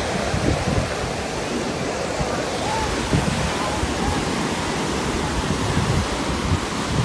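Ocean surf breaking and washing up a sandy beach: a steady rushing wash with no single loud event, faint voices of onlookers under it.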